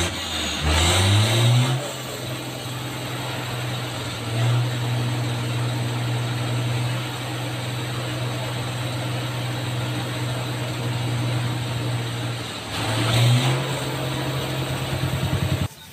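An engine running steadily, rising in pitch as it revs up over the first couple of seconds and revving briefly again near the end, over the hiss of a high-pressure water jet. It cuts off suddenly just before the end.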